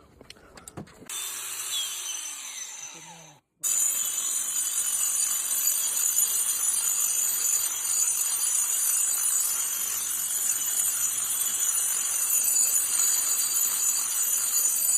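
Angle grinder with a diamond disc grinding concrete: after a quieter stretch with a falling whine and a brief break, a steady, high-pitched grinding sets in about four seconds in and holds.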